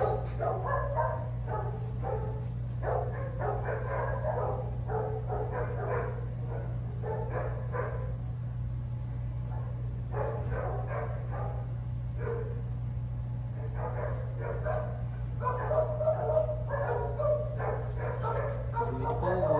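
Rottweiler panting and sniffing in short spells as it works a scent search, over a steady low hum.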